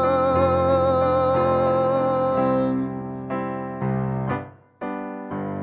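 A sung note held with vibrato over chords on a digital piano, ending about two and a half seconds in; then the piano plays on alone, with a short break and a fresh chord near the end.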